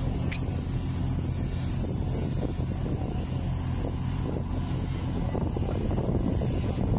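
Steady low engine drone with no change in speed, overlaid with wind hiss on the microphone.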